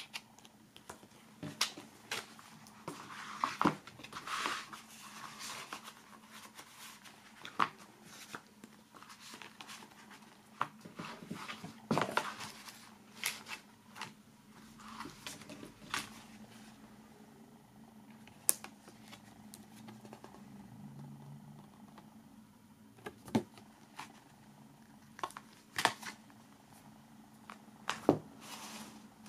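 Cardboard box-set packaging and a hardcover booklet being handled: scattered sharp clicks and taps of card, with stretches of paper rustling, over a faint steady low hum.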